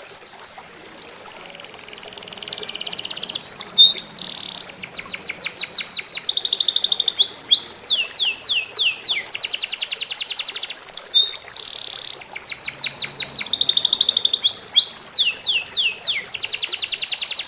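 A songbird singing loudly in long, fast series of high notes: rapid trills, buzzy runs and quick falling whistles, broken by short pauses, starting about a second in.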